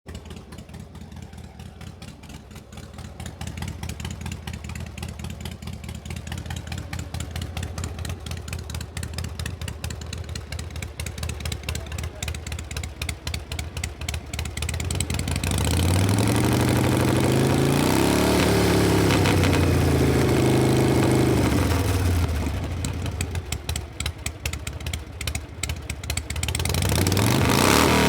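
Harley-Davidson V-twin motorcycle engine idling with a fast, even beat that gets louder a few seconds in. About halfway through it revs up, its pitch climbing and falling back over several seconds, then settles to idle before revving again near the end.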